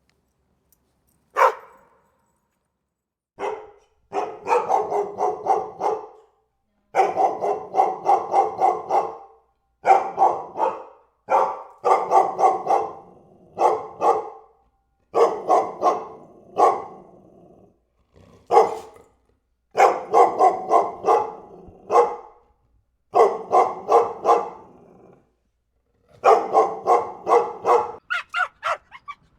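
Dog barking in a series of rapid bursts, several barks to a burst with short pauses between, after a single sharp yelp near the start. Near the end come quicker, higher-pitched yaps.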